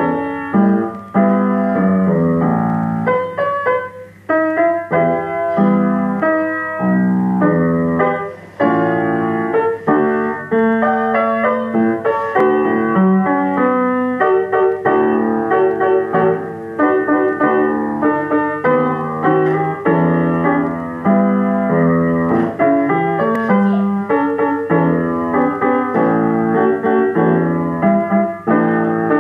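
Piano music: a steady run of melody notes over chords.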